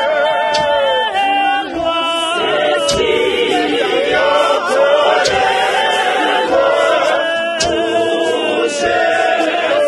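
Mixed choir of women's and men's voices singing an isiZulu gospel hymn of praise a cappella, several parts in harmony.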